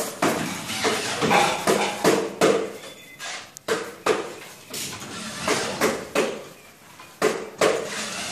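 Gypsum ceiling board being screwed up: a corded electric drill-driver running in short bursts to drive screws through the board into the metal ceiling frame, among irregular knocks and clatter.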